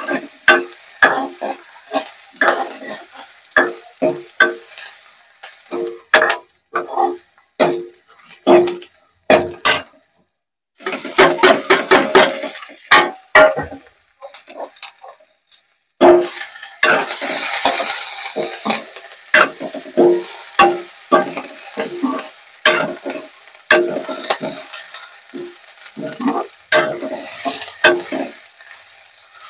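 Steel ladle scraping and knocking against a kadhai, about two strokes a second, as onions and moringa leaves are stirred in hot oil. Twice, near the middle, loud sizzling swells up over the stirring as the frying leaves hiss.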